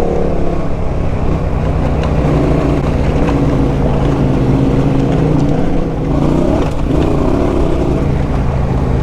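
Dirt bike engine running at a steady cruising pace on a trail, with wind on the microphone; the revs dip briefly and pick up again about six seconds in.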